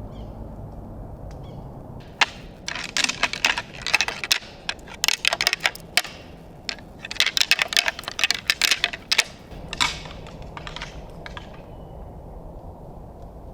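Irregular flurries of sharp crackling and clicking, thick for about nine seconds and then thinning out and stopping.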